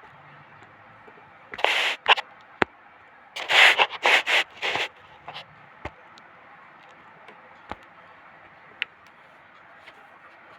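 Short scraping and rubbing sounds in two brief clusters, with a few sharp clicks between them.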